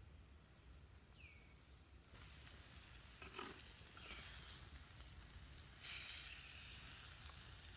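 Chicken pieces and eggs sizzling in a pan over a wood fire. The sizzle starts about two seconds in and swells twice.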